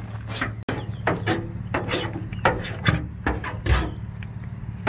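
Blade tip of a reciprocating saw scratching lines into a minivan's painted steel hood, as a string of short scraping strokes about two a second, over a steady low hum.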